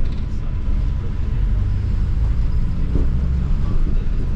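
London double-decker bus running along the road, heard from inside: a steady low rumble of engine and road noise.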